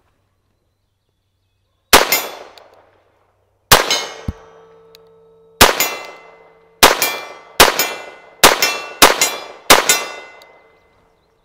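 Eight shots from a Walther-made Colt Government Model 1911A1 pistol chambered in .22 Long Rifle, fired one at a time. Each is a sharp crack trailing off in a short echo. The first comes about two seconds in, and the shots come quicker toward the end.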